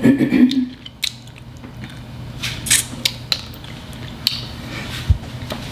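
Close-miked eating of snow crab legs: a louder burst at the start as meat is sucked from a shell, then scattered sharp clicks and crackles of the shells being handled and picked.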